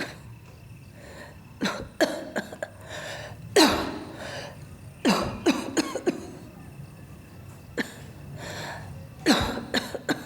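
A person coughing repeatedly in harsh fits, a few coughs at a time, with short pauses between the fits.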